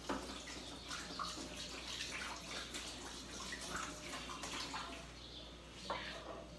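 Faint running water, an even hiss with a few small knocks, like a tap running off to one side.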